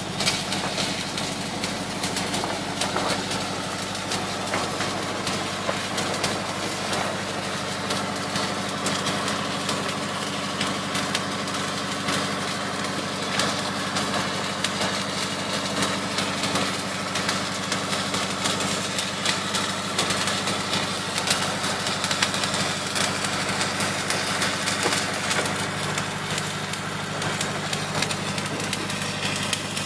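Electric arc welding on a steel pipe repair sleeve: the arc crackles and sputters continuously over a steady low hum of an engine running.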